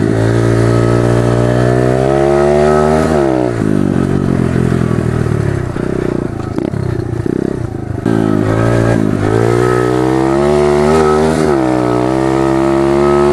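Pit bike's small single-cylinder four-stroke engine under way, revving up and then dropping in revs about three seconds in. It runs lower and rougher for a few seconds, then climbs again with another quick dip in revs near the end.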